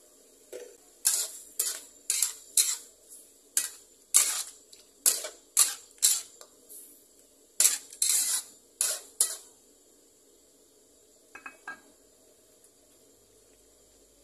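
Metal spatula scraping and clanking against a metal wok as shelled mussels are stir-fried: about a dozen quick strokes, then it stops, with two light clicks later. A faint steady hum underneath.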